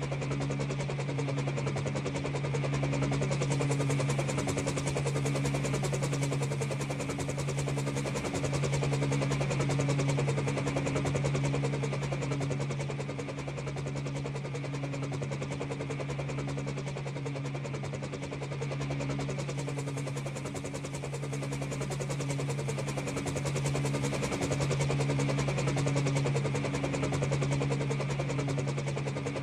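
A helicopter sound effect with a steady low drone and a fast rhythmic chop, swelling and fading slowly as it is panned around the surround speakers.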